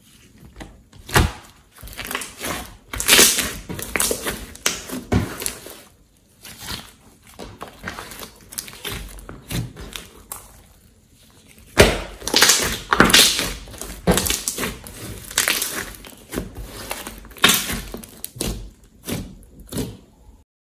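Pink slime being squeezed, stretched and poked by hand, making irregular wet squelches, clicks and small pops. There are brief pauses about six seconds in and again around ten to eleven seconds, and the loudest pop comes right after the second pause.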